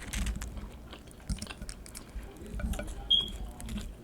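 Close-miked chewing of a mouthful of nachos, with irregular wet mouth clicks and smacks and a brief sharp click about three seconds in.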